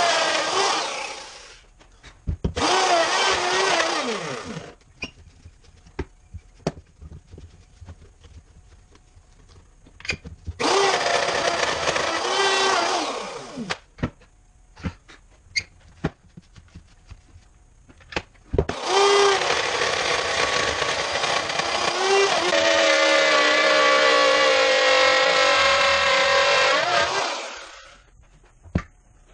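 Electric router cutting slots into MDF, switched on and off several times: four runs of loud whining cutting noise whose pitch bends as the motor speeds up and winds down, with knocks and clicks in the pauses between runs. The longest run comes in the last third.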